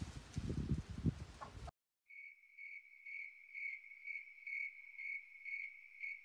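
A cricket chirping steadily, about two chirps a second, each chirp on one clear pitch. It starts about two seconds in, after a rumble of wind and handling noise on the camera microphone cuts off abruptly.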